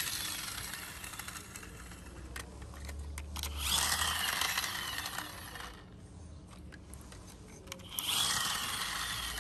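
Plastic toy trucks rolled over rough concrete, their wheels grinding and whirring in two stretches of about two seconds each, the second starting about eight seconds in, with quieter scraping in between.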